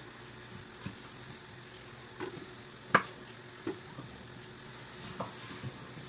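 Knife chopping orange pieces on a wooden cutting board: a few separate sharp knocks, the loudest about three seconds in, over a steady faint hiss.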